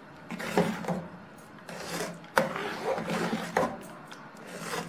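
Steel ladle stirring thick porridge in an aluminium pot, scraping the bottom and sides, with irregular scrapes and a few sharp knocks against the pot, one clear knock about halfway through.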